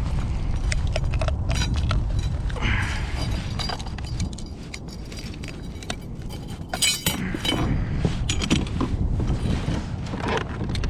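Scattered clicks and clinks of fishing gear being handled on a kayak, with a bright burst of metallic clinking about seven seconds in. A steady low rumble of wind and water runs underneath.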